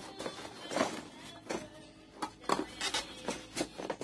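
Items and packaging being handled by hand: a series of short, scattered clicks and rustles, about seven in all.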